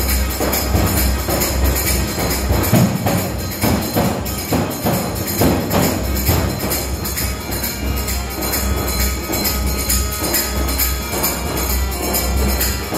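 Music led by a large jingled frame drum, a tambourine beaten by hand in a fast, steady rhythm with its metal jingles ringing on every stroke.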